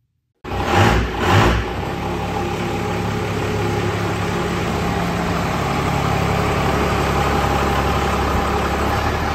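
The 1965 GMC two-ton truck's 12-valve Cummins inline-six diesel, two short revs about a second in, then idling steadily.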